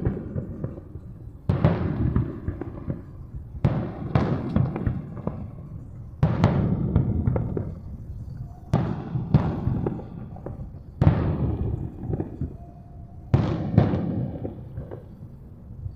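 Aerial fireworks shells bursting in a steady series, six booms about two to two and a half seconds apart. Each boom trails off with crackling and echo.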